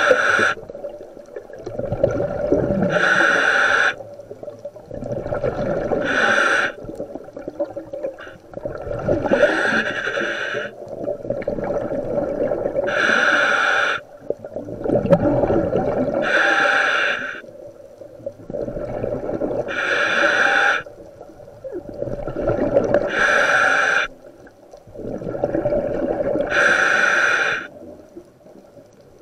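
Diver breathing through a scuba regulator in a full-face mask, about eight breaths: each inhale a roughly one-second hiss from the demand valve, each exhale a longer low rush of bubbles from the exhaust.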